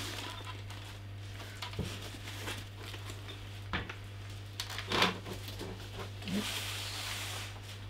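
Plastic protective bag around a computer monitor rustling and crinkling as the monitor is handled, with a few light knocks of the monitor against the bench. The crinkling is loudest near the end.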